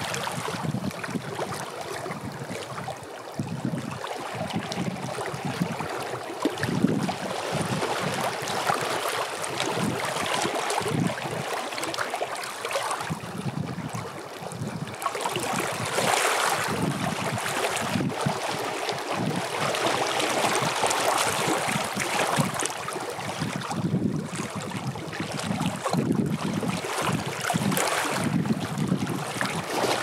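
Small wind-driven lake waves lapping and splashing against shoreline rocks in uneven washes, with gusts of wind buffeting the microphone.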